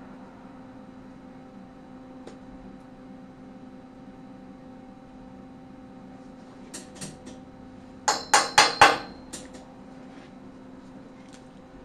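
A hammer striking steel tubing: a couple of light taps, then a quick run of about five sharp, ringing metal-on-metal blows about eight seconds in, followed by a few lighter ticks. A steady low hum runs underneath.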